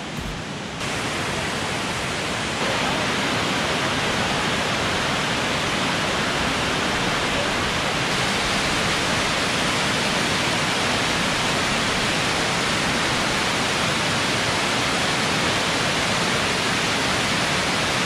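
Cascading waterfall pouring over stepped rock ledges: a steady rushing of water that grows a little louder in the first few seconds, then holds constant.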